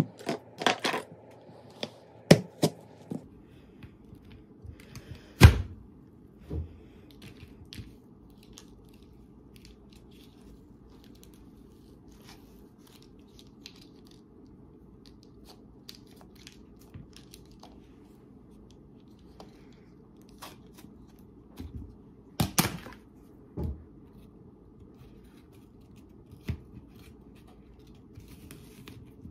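A green apple being cut up on a plastic cutting board with a plastic apple slicer and a knife: scattered sharp knocks and cutting sounds, in a cluster about a second in, one loud knock about five seconds in and another cluster a little past twenty seconds, with quiet stretches between.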